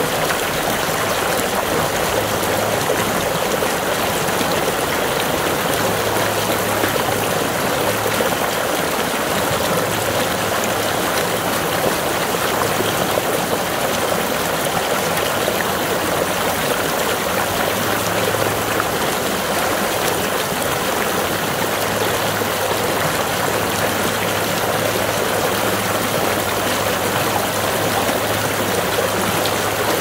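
Water pouring steadily from a lake's outlet pipe and splashing onto the water below, an even, unbroken splashing noise.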